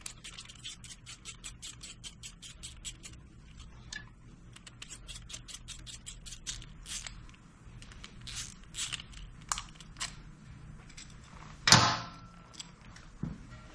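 Hand ratchet clicking in quick, even strokes as the two bolts of a motorcycle highway-peg clamp are worked loose, with scattered metal clicks between runs. Near the end a loud metal clank rings out, followed by a lighter knock.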